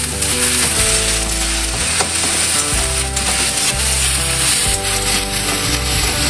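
Chopped vegetables sizzling in hot oil in a kadhai, stirred with a spatula that scrapes and taps against the pan.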